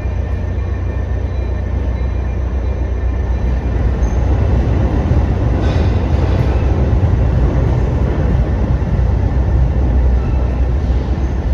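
Metra diesel commuter train running with a steady low rumble.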